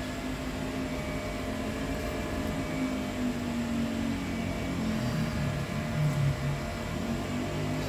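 Steady whir of computer cooling fans on an open graphics-card test bench, with a low hum that wavers in pitch through the middle.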